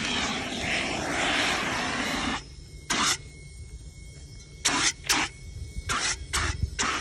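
Handheld fire extinguisher discharging onto a burning crashed RC jet: one long hissing blast for about two and a half seconds, then about six short squirts.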